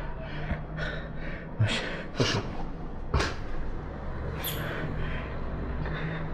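About four separate knocks and clunks spread over a few seconds, the last a brighter clink, over a low steady hum.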